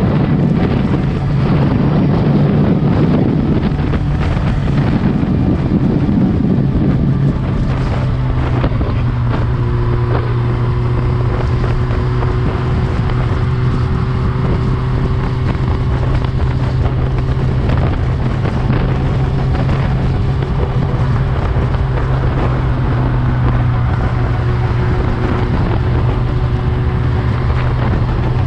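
Suzuki GSX-R1000's inline-four engine with an Akrapovic full exhaust, running at a steady pitch, with wind buffeting the microphone. The sound is rougher and louder for the first several seconds, then settles into an even drone.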